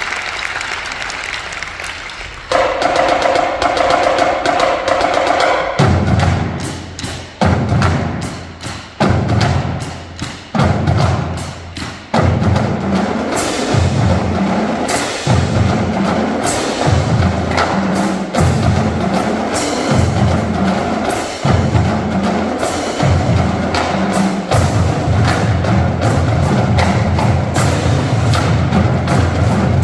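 Marching drumline playing: sharp snare and stick clicks over heavy bass drum hits. A held tone comes in about two seconds in, the drums join with spaced low hits about six seconds in, and from about twelve seconds on they play without a break.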